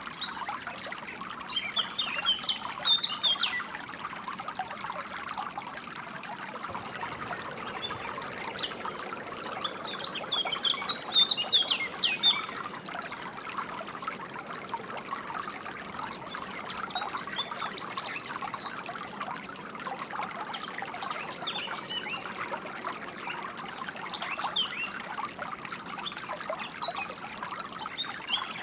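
A stream trickling and pouring steadily, with songbirds chirping in short clusters of quick high notes over it a few times.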